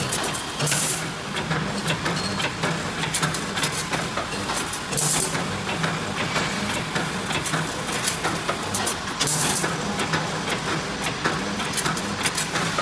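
CNC automatic rebar stirrup bending machine running. Wire is fed through the straightening rollers and bent into stirrups by the rotating bending head, with a steady motor hum, rapid clicks and clacks, and a short hiss about every four seconds.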